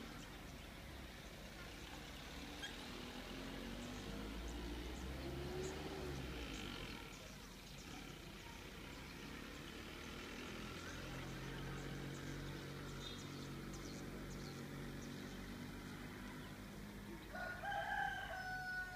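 A rooster crowing once near the end, one long held call, over faint village ambience with a low steady hum underneath.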